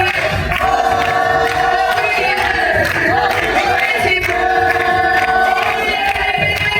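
Vocal music with long held sung notes, repeating about once a second, mixed with crowd noise in a large hall.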